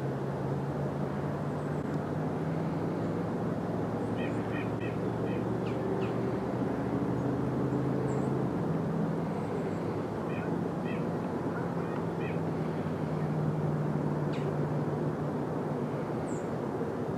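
Outdoor field ambience: a steady low hum under a constant hiss, with short bird chirps every few seconds.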